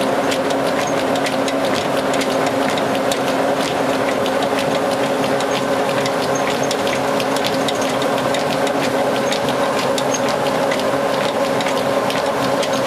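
Old belt-driven wooden rice mill running: a steady mechanical hum with a constant fast rattle and ticking from the flat drive belts, pulleys and mill mechanism.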